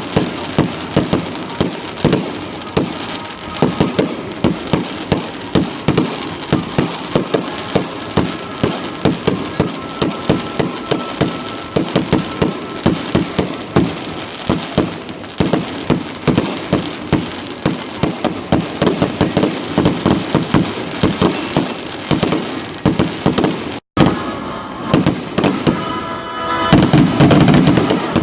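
Fireworks going off in a rapid, unbroken run of bangs and crackles, several a second. The sound drops out for a moment near the end.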